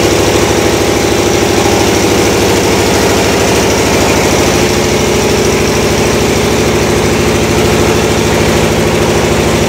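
Reciprocating refrigeration compressors running in a cold storage plant room: a loud, steady machine drone with a fast, even pulsing.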